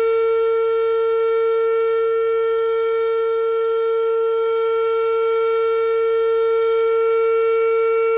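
Fedelcode Model 5 eight-port outdoor warning siren sounding its steady alert tone: one loud held pitch that neither rises nor falls.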